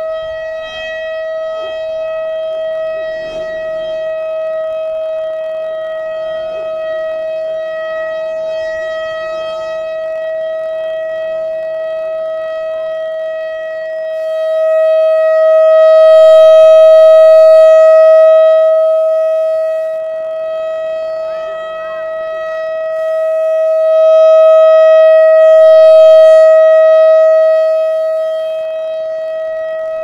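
Whelen 3000 series electronic warning siren sounding a steady, unwavering alert tone on test. Its rotating speaker array makes the tone swell loud twice as it turns to face the listener, then fall back.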